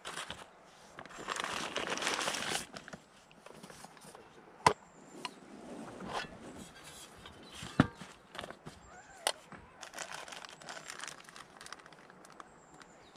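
Crinkling and rustling of something being handled, loudest for a second or so near the start, with two sharp clicks later on.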